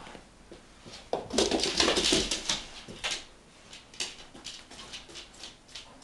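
Golden retriever moving about close by: a loud stretch of rustling and scuffling starting about a second in and lasting some two seconds, then scattered light clicks.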